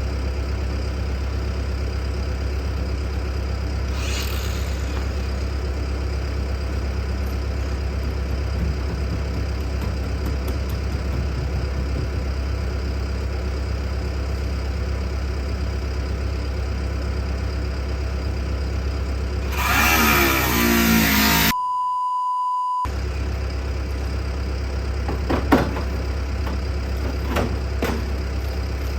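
A motor engine runs steadily at idle throughout. About twenty seconds in, a louder noisy burst with a falling pitch cuts off into a second of silence with a single steady beep. A few sharp clicks follow near the end.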